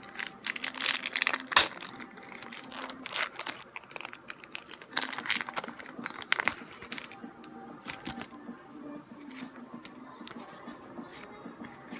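Foil wrapper of a Pokémon trading-card booster pack crinkling and tearing as it is pulled open by hand. There is a dense run of crackles over the first seven seconds, then sparser rustles and crackles.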